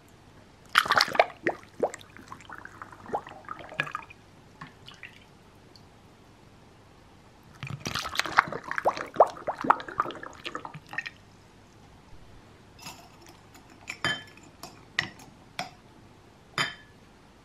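Clementine syrup poured through a plastic funnel into a glass swing-top bottle in two pours, liquid running and dripping with glass clinks. Near the end come a few separate sharp clicks as the bottle's wire-clasp stopper is closed.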